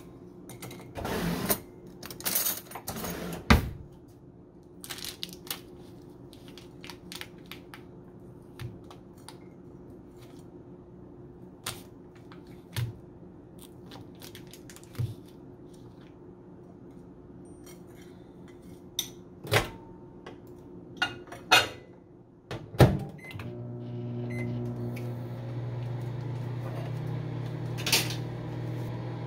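Kitchen counter clatter: scattered knocks and clicks from handling a plate, a knife and a cream cheese box over a low steady hum. About 23 seconds in, a louder steady hum starts: a microwave oven running.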